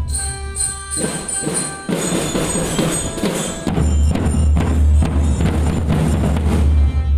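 School marching drum band playing: short ringing mallet-bell (bell lyra) notes over snare and bass drum strokes.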